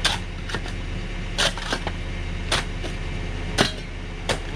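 Steel digging bar striking bedrock at the bottom of an excavation: five sharp strikes, about one a second, with lighter clinks between them. A steady low machine hum runs underneath.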